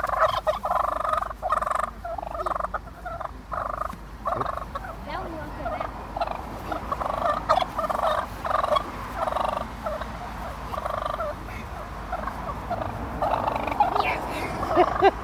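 Wild turkey toms calling, a steady run of short repeated calls about two or three a second, growing busier and louder near the end.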